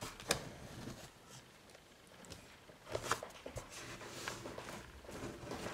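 Faint rustling with a few soft clicks and taps, the sharpest shortly after the start and about three seconds in.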